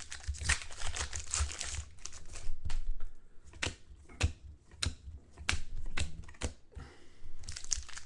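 Trading card packs and cards being handled: a run of irregular sharp clicks over a crinkling, rustling sound.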